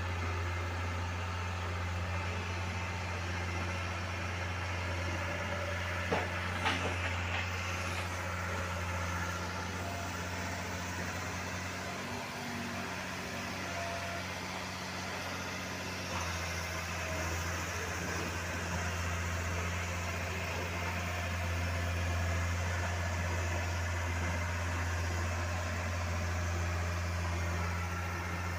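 A train running, heard from inside the coach at an open window: a steady low drone with an even rumble, and a couple of short clicks about six to seven seconds in.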